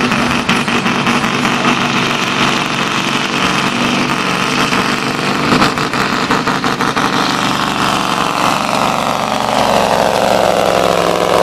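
Scania V8 diesel truck engine running hard under heavy load while pulling a weight-transfer sled, a steady loud drone that grows slightly louder as the truck comes past near the end.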